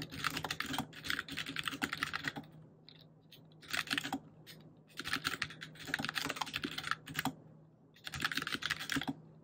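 Typing on a computer keyboard: fast runs of key clicks in several bursts, with short pauses between them.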